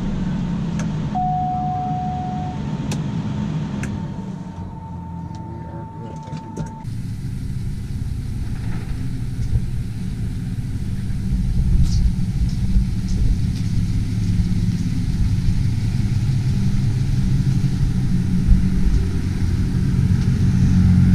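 Cessna 208 Caravan's PT6 turboprop running, heard from inside the cockpit, with a short steady tone about a second in. After about seven seconds the sound cuts abruptly to a low motor-vehicle rumble that slowly grows louder.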